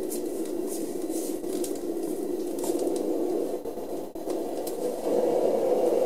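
Sleep Easy white noise machine's fan running, a steady rushing noise that gets a little louder about five seconds in. No rattle: the bent fan blade has been straightened so the fan spins in balance.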